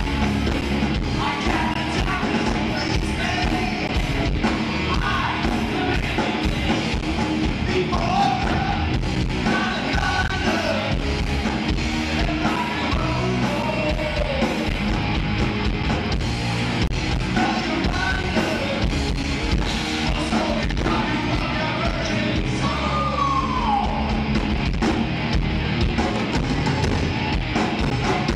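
Live hard rock band playing loud and steady, with distorted electric guitars, bass and drums, and yelled singing over them, as heard through the venue's PA.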